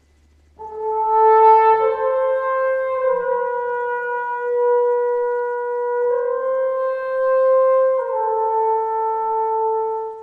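Soundtrack music: a solo brass horn playing a slow melody of long held notes, stepping up in pitch and back down, coming in about half a second in.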